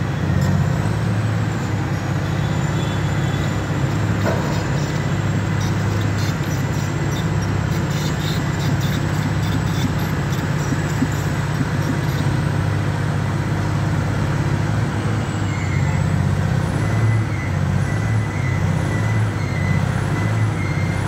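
Volvo crawler excavator's diesel engine running steadily as the machine works, a constant low drone that holds for the whole stretch.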